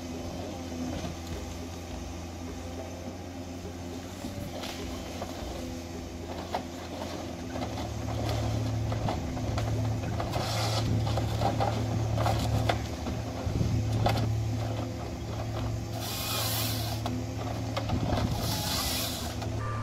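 Diesel engine of a forestry harvester running steadily, growing louder about a third of the way in as it works, with a few short bursts of high hissing noise.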